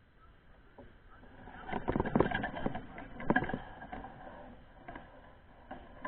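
Mountain bike clattering and rattling over rough trail: a burst of knocks about two seconds in and another about a second later.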